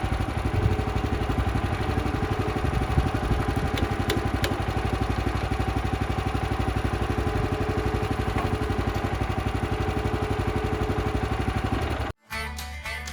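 Small gasoline engine of a Woodland Mills HM126 portable sawmill running steadily at idle while it warms up. About twelve seconds in it cuts off abruptly and acoustic guitar music begins.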